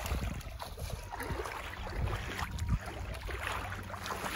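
Wind rumbling on the microphone over irregular splashing of river water.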